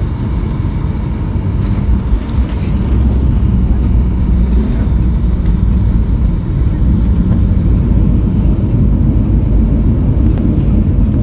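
Steady low rumble of an airliner rolling down the runway after landing, its engines and wheels heard from inside the cabin. It grows louder about three seconds in and holds there.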